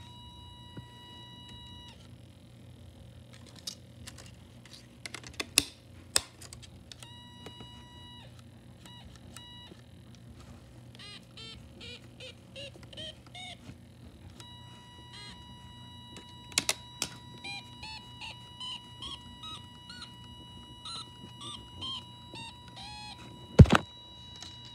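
Snap Circuits electronic keyboard circuit beeping: buzzy electronic tones, first held steady, then short beeps at changing pitches as its keys are pressed. Sharp clicks of handling are heard throughout, with a loud thump near the end.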